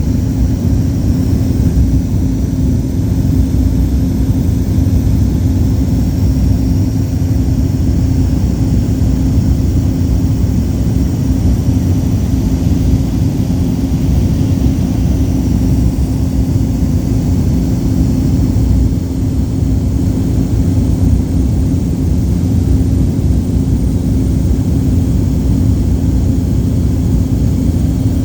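Cabin drone of a Cessna 208 Caravan's single turboprop engine and propeller in cruise: a loud, steady rumble with a steady low hum from the propeller.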